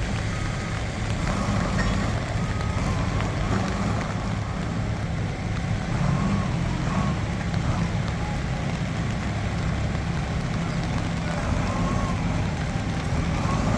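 Diesel engine of a Nippon Sharyo DH408-95M pile driver running steadily at an even speed.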